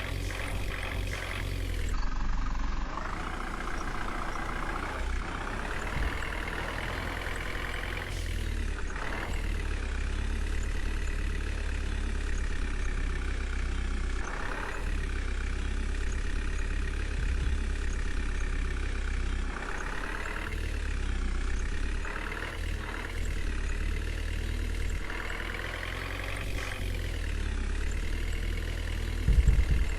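JCB 3DX backhoe loader's diesel engine running under working load, its note rising and falling repeatedly as the machine digs and swings. Heavy low thuds near the end.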